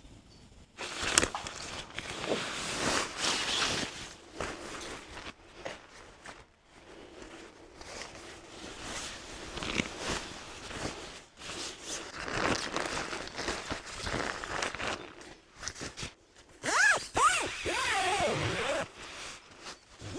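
Irregular rustling and crunching handling noise, like footsteps and fabric or gear being moved about, in uneven bursts. Near the end there is a short wavering pitched sound.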